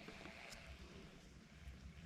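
Faint, steady rush of fast-flowing creek water, close to silence.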